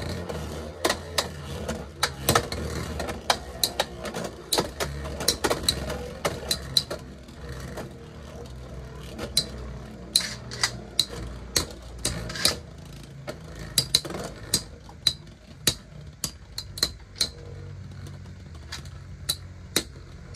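Two Beyblade X spinning tops battling in a plastic stadium. A steady low whir of their tips on the floor is broken by sharp, irregular clacks as the blades strike each other, sometimes in quick runs and sometimes with a second or two between.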